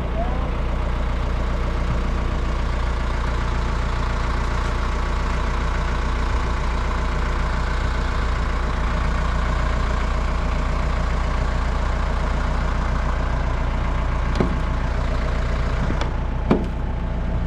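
An engine idling steadily, with two or three brief metallic knocks near the end.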